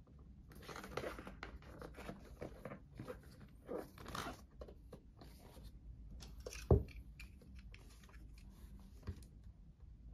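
Cardboard tablet box being handled and turned over: a run of soft scrapes, rubs and taps on the card, with one louder thump a little past halfway, and a fingernail scratching at the box's seal sticker near the end.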